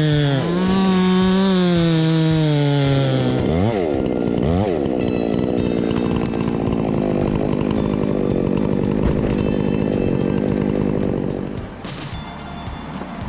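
Chainsaw running at high revs under load, its pitch sagging and recovering as it cuts. About four seconds in the revs dip sharply twice, then it runs steadily until it drops off near the end.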